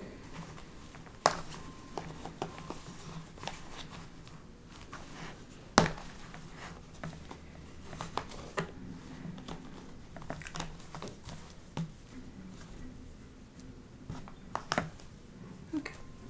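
Scattered light clicks and taps with faint rustling from hands sorting through a box of embroidery floss; the sharpest click comes about six seconds in. A faint low hum runs underneath.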